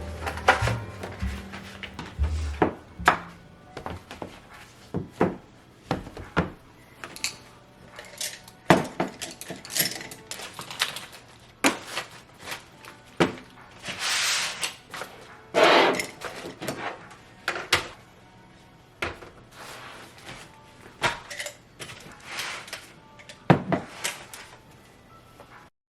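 Objects being handled and set down on a desk: scattered knocks and thunks, with a couple of brief rustling or scraping sounds about halfway through.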